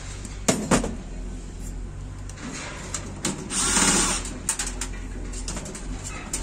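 Cordless drill-driver spinning briefly, well under a second, about three and a half seconds in, backing out a motherboard screw from a computer case. Two sharp knocks near the start and a few light clicks after the drill stops.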